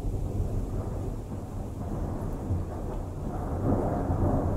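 Thunder rumbling on and on, swelling louder about three seconds in.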